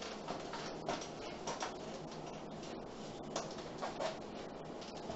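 A whiteboard being wiped with a duster and then written on with a marker: a handful of short scrapes and taps over steady room hiss.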